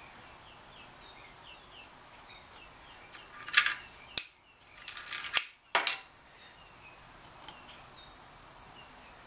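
Small screws and parts clattering in a metal parts tray as a hand rummages for the fuel pump's top screws: a few sharp metallic clicks and rattles between about three and a half and six seconds in.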